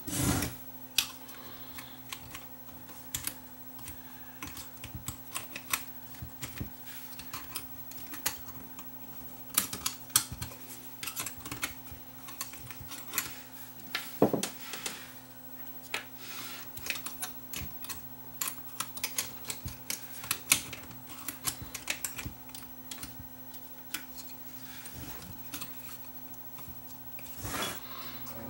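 Irregular small clicks and taps of the Technics RS-M275 cassette deck's plastic and metal parts being handled and fitted during reassembly, with a few louder knocks among them, over a faint steady hum.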